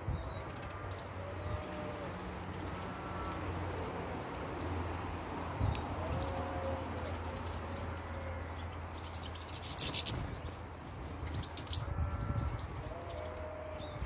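Doves cooing in short repeated phrases, with small finches chirping and a brief louder high burst about two-thirds of the way through, over a steady low hum.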